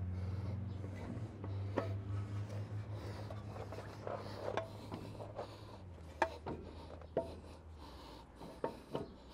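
Scattered clicks, light knocks and rubbing of metal parts and tools being handled as a Land Cruiser 200's CV axle is worked into the wheel hub. A steady low hum underneath fades out about six to eight seconds in.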